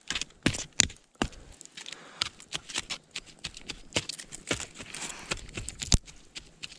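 Dry sticks and twigs being handled and broken, giving a string of sharp, irregular cracks and knocks with rustling of dry debris between them; a few cracks are loud, one about six seconds in.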